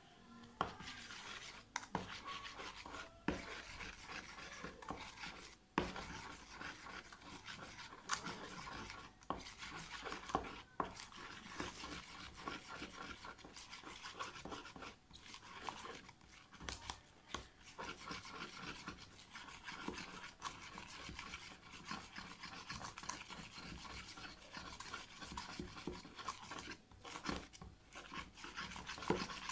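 A spoon stirring and scraping a mix of white glue and shaving foam around a small plastic tub: steady scraping with frequent small clicks of the spoon against the plastic.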